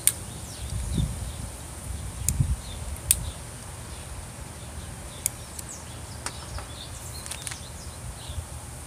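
A tobacco pipe being lit and puffed: soft low puffs about a second in and again a little after two seconds, with a few sharp clicks scattered through. Underneath runs a steady high-pitched insect drone with faint bird chirps.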